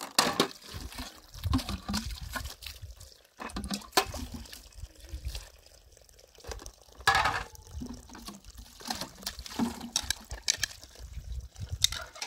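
Dishes being washed by hand: water splashing and dripping, with uneven knocks and clinks of stainless-steel plates and cups on a metal tray.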